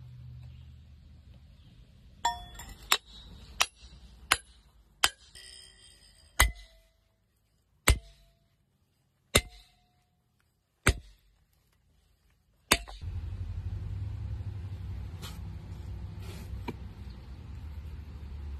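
Hammer striking a steel wedge set on shims in a crack of rock, about ten sharp ringing clangs, the later ones about a second and a half apart, driving the wedge to force the rock to break. After the last strike, a steady low rumbling noise.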